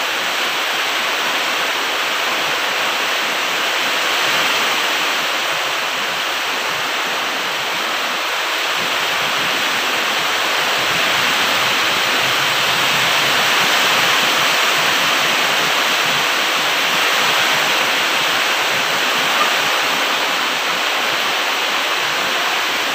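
Steady, even rushing noise that does not change through the whole stretch, with no clear calls or knocks standing out.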